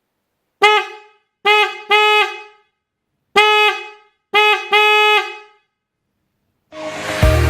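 Bosch EC6 Compact Plus fanfare car horns sounding in six honks, some short taps and some held for about half a second, two of them in quick doubles, with silence between the honks. Background music starts near the end.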